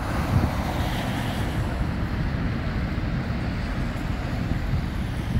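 Wind buffeting the microphone in a heavy, uneven low rumble, over street traffic with car tyres hissing on a wet road; the hiss is strongest in the first couple of seconds.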